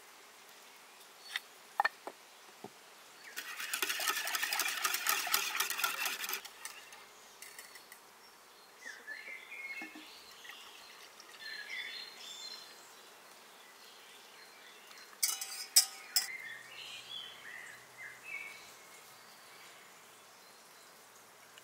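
Wire whisk beating a milky drink mixture in an enamel pot: a rapid metal clicking for about three seconds. Then softer pouring into a glass jug and a couple of sharp knocks about fifteen seconds in.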